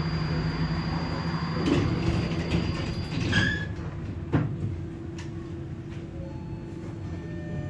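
Tatra KT8D5 tram running, with a steady low hum and several sharp knocks, and a short high squeal about three seconds in.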